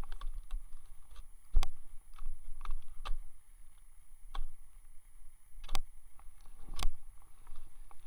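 Ski gear clacking as a skier works slowly through brushy trees in snow: irregular knocks and clicks from skis and ski poles, the loudest about a second and a half in and twice near the end, over a low rumble.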